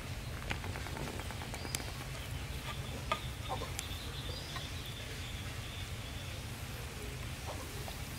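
A hand squishing and stirring beaten egg batter in a plastic bowl, with soft wet clicks. Behind it is outdoor ambience: a thin, steady high insect trill through the middle and a few short bird chirps.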